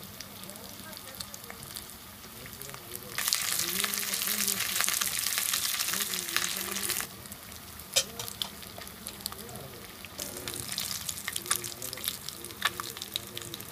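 Rava-coated fish slice shallow-frying in hot oil in a pan, sizzling and crackling. The sizzle swells louder and denser for a few seconds in the middle, then settles back. A few sharp clicks follow as a metal spatula works under the fish.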